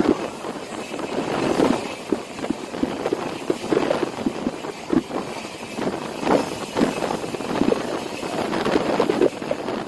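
Express passenger train running at speed, heard from the open side of a coach: a steady rush of wind and track noise with irregular knocks and clatter from the wheels on the rails.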